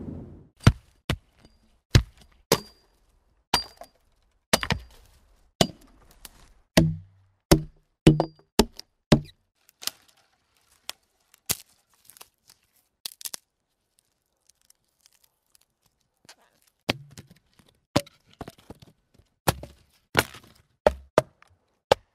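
A series of sharp knocks and cracks at irregular intervals, several of them heavier with a low thud about a third of the way in. The series breaks off for a couple of seconds past the middle, then resumes.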